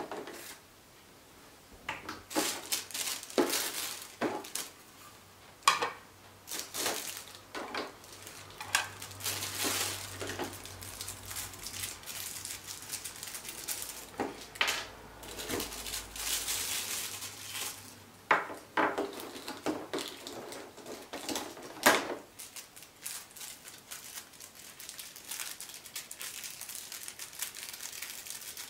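Clear plastic blister trays and plastic wrap being handled: sharp plastic clicks and knocks mixed with crinkling, densest in the middle and quieter in the last few seconds.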